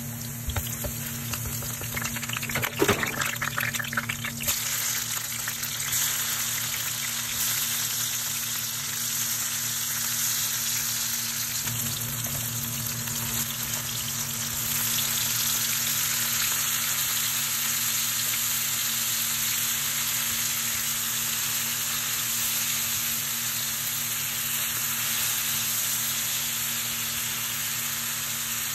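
Ginger, then squid with onion and tomato, sizzling steadily in hot oil in a frying pan. A few knocks and clatter of ingredients and utensil come about two to four seconds in.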